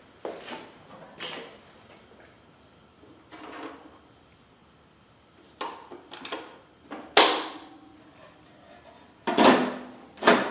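Scattered knocks, clicks and rubs of equipment being handled, with quiet gaps between; the sharpest knock comes about seven seconds in and a quick cluster follows near the end.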